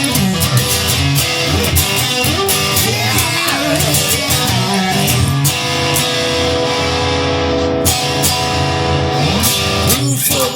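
Instrumental break of a rock song: guitar playing over a steady drum beat, with long held notes in the middle.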